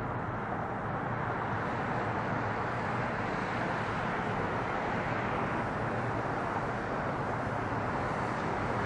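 Jet engines of a four-engine Boeing 747 climbing out after takeoff, heard from the ground as a steady, even rumble.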